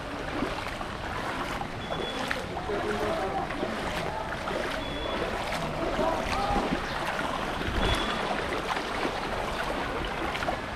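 Feet wading through ankle-deep floodwater on a paved street, the water splashing and swishing with each step.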